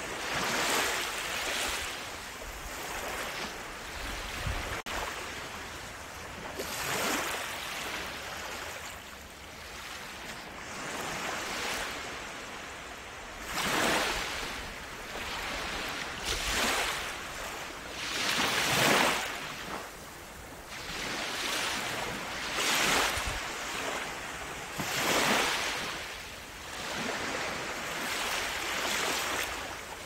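Sea waves washing in, the surf noise swelling and ebbing in irregular surges a few seconds apart.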